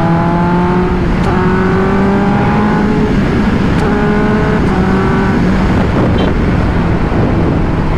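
Kawasaki 1000 cc sportbike engine pulling hard under acceleration, heard from the rider's seat: its pitch climbs in steps, dropping briefly at each upshift, then settles after about five seconds into steady high-speed cruising. Wind rushes over the microphone throughout.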